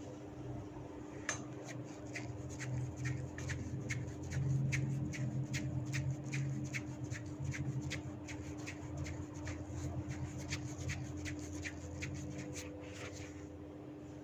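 Hair cracking in a head massage: tufts of hair tugged one after another, giving a fast, regular series of short cracking snaps, about three a second, over a low rubbing sound. The snaps start about a second in and stop shortly before the end.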